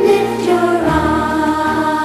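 Children's Christian song: voices singing a melody over instrumental backing, the singing coming in right at the start after an instrumental intro.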